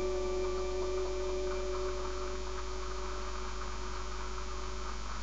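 Steady low electrical mains hum with a few held tones that fade out about two seconds in, leaving the hum and a faint hiss.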